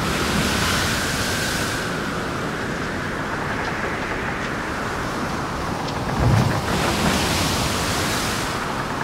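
Storm sound effect: a steady rushing of wind and waves, swelling twice, with one low boom a little after six seconds.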